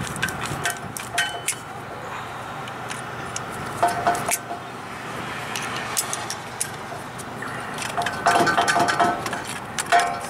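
Needle-nose pliers clicking and clinking against a Toyota 4Runner front brake caliper as the pad retaining pins and clip are worked out, small metal parts ringing briefly. The loudest stretch is a run of jangling metal clinks about eight seconds in.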